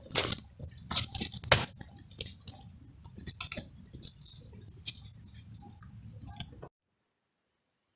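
Close, irregular crunching, rustling and clicking handling sounds, several sharp strokes a second, that stop abruptly about two-thirds of the way in, leaving silence.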